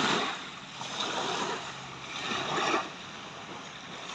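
Small waves breaking and washing up a sandy shore in the shallows. The wash surges and eases a few times and is loudest at the start.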